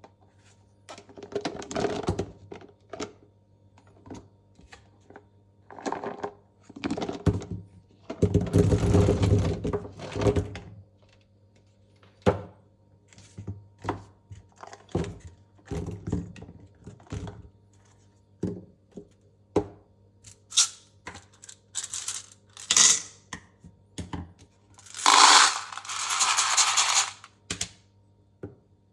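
Small velvet sticks handled and sorted by hand: irregular taps and clicks, with several longer rattling clatters, the loudest around nine and twenty-five seconds in.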